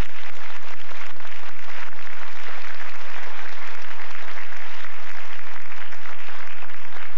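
An audience applauding, many hands clapping at once.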